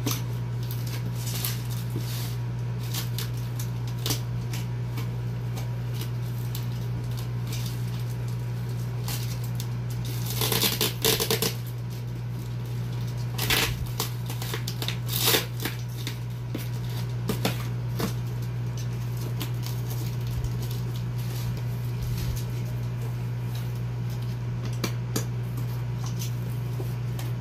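Packing tape being slit with a utility knife and a cardboard box's flaps pulled open: scattered scraping and rustling, with a louder stretch of rustling about ten seconds in and a few sharper scrapes after. A steady low hum runs underneath.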